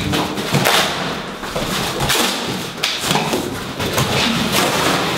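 Large cardboard box being handled and pulled open, with several knocks and thuds of cardboard.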